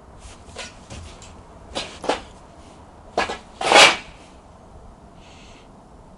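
Short metallic clicks and clacks of a Yugoslavian M48 Mauser-pattern bolt-action rifle being handled and its bolt worked, several in the first four seconds, the loudest just before four seconds in.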